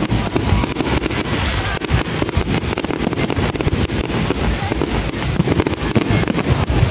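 Fireworks display: aerial shells bursting in quick succession, a continuous run of bangs and crackling with no break.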